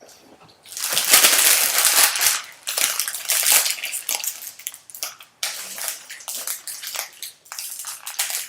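Crinkling and tearing of a trading-card pack's foil wrapper as it is ripped open and handled, an irregular crackle that starts about a second in.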